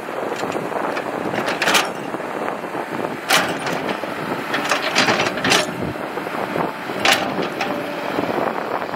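Caterpillar crawler excavator's diesel engine and hydraulics running steadily as the bucket digs and scrapes dry sandy soil, with about five or six sharp metallic knocks from the bucket and arm every second or two.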